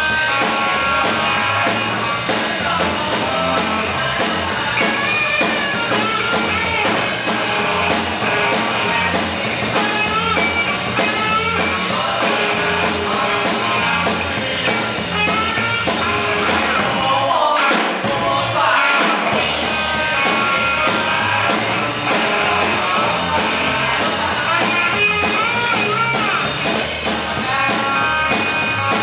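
A live rock band playing: electric guitars, bass guitar and drum kit through amplifiers, with vocals sung into microphones. The drums and bass briefly drop out about two-thirds of the way through.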